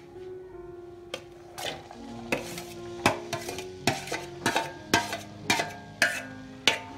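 Slotted spatula scraping and knocking against a steel plate as chopped onions are pushed off it into a pot of oil, about a dozen strokes, coming about twice a second in the second half, with the onions starting to sizzle.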